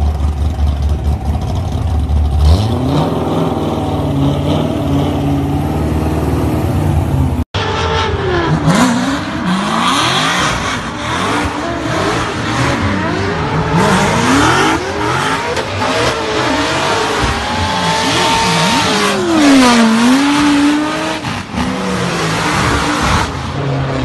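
A Corvette's V8 held at high revs during a burnout, a steady engine note over the rush of spinning tyres, stepping up in pitch about two and a half seconds in. After an abrupt cut, a car drifting: its engine revs rise and fall again and again, with tyre noise.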